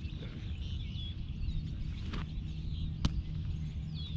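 Birds chirping in short calls over a steady low rumble, with two sharp smacks about two and three seconds in.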